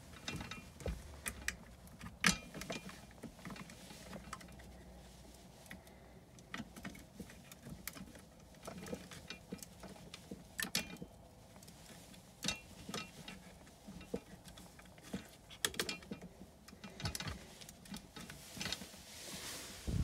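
Faint, scattered clicks and small rattles of hands handling a Honeywell zone damper actuator while a control wire is fastened to its terminals.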